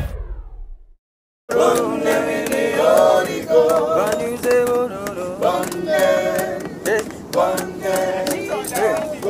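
A music sting fades out in the first second; after a brief gap, a group of voices sings a gospel chorus together without instruments, over a run of sharp claps.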